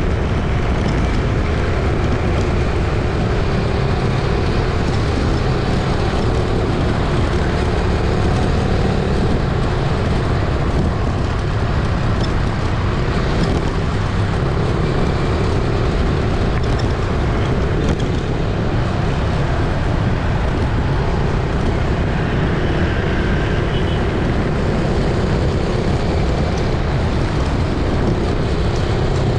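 Dense city street traffic: a steady, continuous wash of vehicle engines and tyre noise, with no single vehicle standing out.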